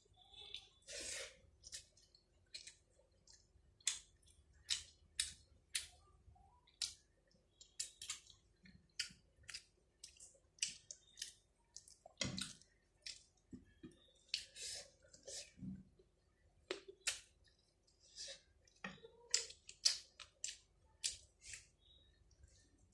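Close mouth sounds of someone eating rice and chicken: chewing with short, sharp, irregular smacks and clicks, about one or two a second.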